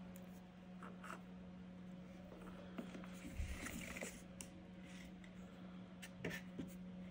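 Faint scraping, rustling and small clicks of hands handling thin wires and a plastic connector plug, over a steady low hum.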